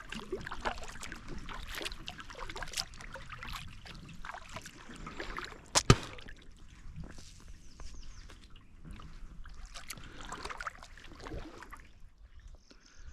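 Kayak paddle strokes: irregular splashing and dripping as the blades dip and lift from the water, with a single sharp knock about six seconds in.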